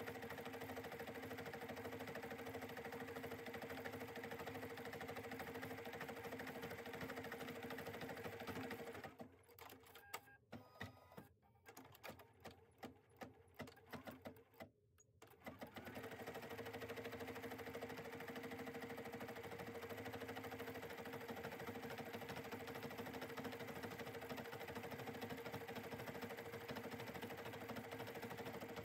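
Bernina 790 embroidery machine stitching steadily in fast-forward as it sews out green stockings on an appliqué block. About nine seconds in the stitching stops for several seconds, with a few scattered clicks, then runs on to the end.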